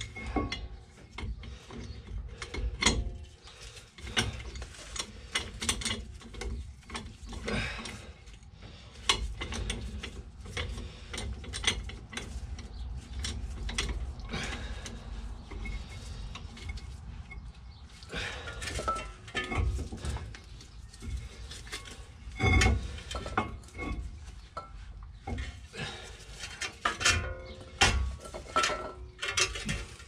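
Hand ratchet clicking in uneven runs as it winds a big clamp's screw, pushing a brake caliper piston back into its bore. Now and then there is a louder metal knock.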